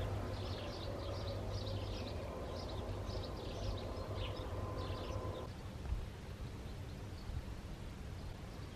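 Small birds chirping in a garden, a quick run of short high chirps that thins out after about five seconds. Underneath are a low outdoor rumble and a faint steady hum that cuts off about five and a half seconds in.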